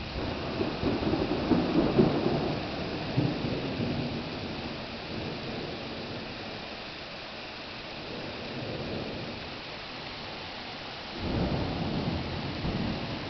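Heavy rain falling steadily, with thunder rumbling over it in the first few seconds and again, starting suddenly, about eleven seconds in.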